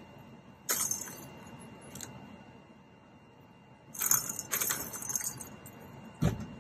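Kittens batting the balls around a plastic tiered ball-track cat toy: two bursts of jangling rattle, a short one about a second in and a longer one about four seconds in, then a single dull thump near the end.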